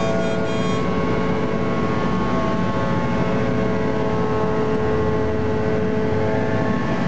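EMD 567 V16 two-stroke diesel engine of a CFL 1600-class locomotive running steadily under power as the train pulls away, heard from inside the cab. A short high beeping sounds in the first second.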